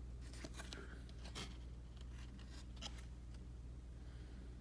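Paper trading cards being handled and slid one behind another, giving a few faint, short swishes and clicks over a low steady hum.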